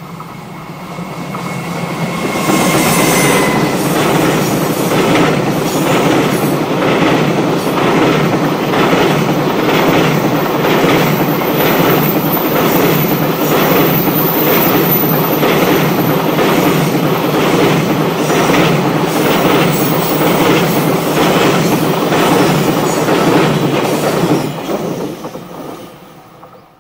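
EF210 electric locomotive and a long train of container wagons passing close by. The sound swells over the first couple of seconds as the locomotive arrives, with a brief high whine. It then holds as a steady rhythmic clatter of wagon wheels over the rail joints, fading away near the end.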